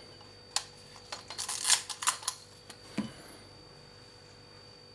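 Manual 35 mm film SLR being cocked and reset by hand: light mechanical clicks from the wind lever and shutter-speed dial, one about half a second in, a quick run between one and two seconds in and another around three seconds, with no shutter release in between.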